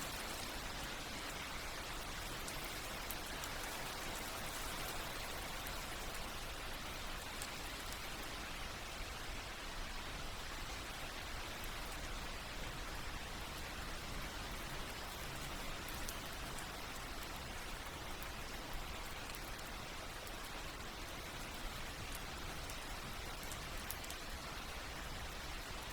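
Steady rainfall: an even hiss of rain with fine scattered drop patter, held at a soft, constant level.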